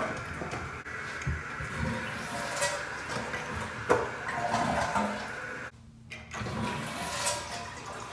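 Toilet flushing through a newly fitted Fluidmaster dual-flush valve, water rushing steadily, with a sharp click about four seconds in and a brief drop-out near six seconds.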